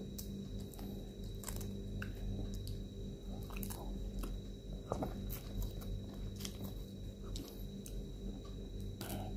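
Cooked shrimp being peeled by hand: irregular sharp clicks and crackles of the shell being broken and pulled off, over a steady low hum.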